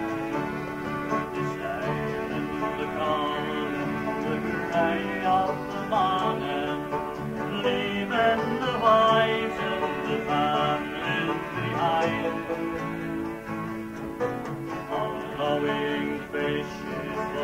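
Live acoustic folk music with plucked string instruments playing a tune, heard on an old recording with a dull top end.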